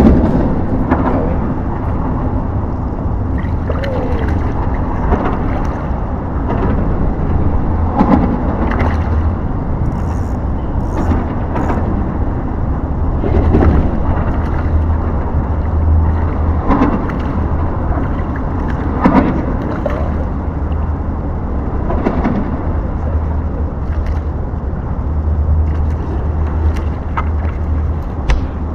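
Steady low rumble under scattered soft knocks and small splashes of water around a kayak.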